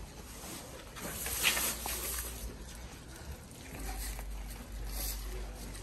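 Boer goat feeding on fresh grass: dry and green grass stems rustling and tearing as it pulls at them, with chewing. The rustling comes in irregular bursts, loudest about a second and a half in and again near five seconds.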